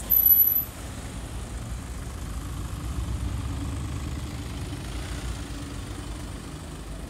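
Low rumble of a Brabus Mercedes G500 4x4²'s V8 as it drives away, swelling about three seconds in and then fading. A brief shrill high squeal right at the start is the loudest thing heard.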